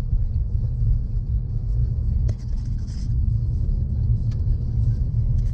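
Steady low rumble of a car driving on a paved road, heard from inside the cabin: engine and tyre noise with no change in pace.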